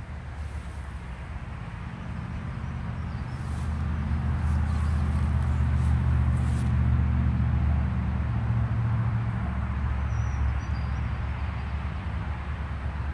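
Low engine rumble of a passing motor vehicle, growing louder over several seconds and then slowly fading.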